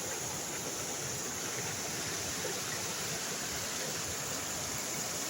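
Steady rushing of flowing water, even and unbroken, with a steady high hiss above it.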